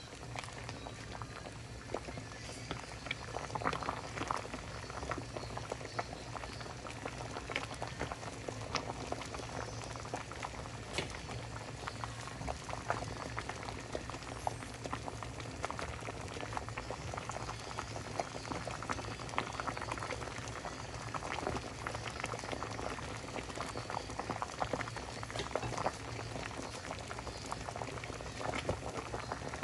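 Pot of seaweed soup boiling: a dense, steady bubbling with many small pops, over a steady low hum.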